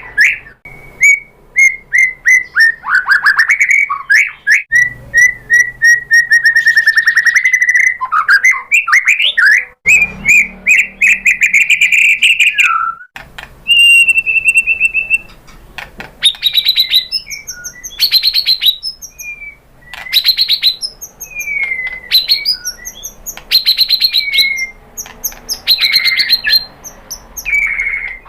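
White-rumped shama singing a long, varied song: rapid runs of repeated whistled notes, sweeping slurs and fast chattering trills, with one held clear whistle about halfway through.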